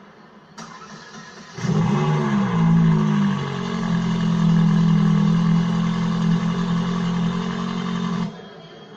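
A supercar's engine comes in loud about a second and a half in. Its pitch dips and climbs back once, then holds a steady high-revving note before cutting off abruptly near the end.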